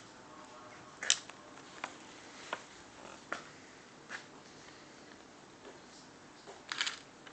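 Footsteps: sharp taps roughly every three-quarters of a second, the first the loudest, then a quicker, louder cluster near the end, over a faint hiss.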